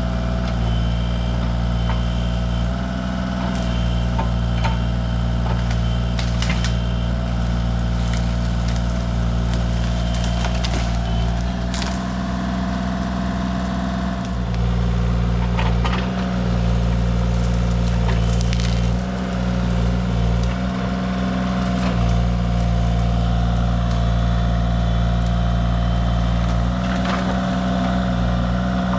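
Excavator's diesel engine running steadily while clearing land, with scattered cracks and snaps of breaking wood as brush and trees give way.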